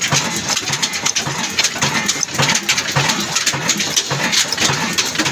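Old 22 hp single-cylinder horizontal diesel engine with a large flywheel running steadily, with a rhythmic mechanical clatter.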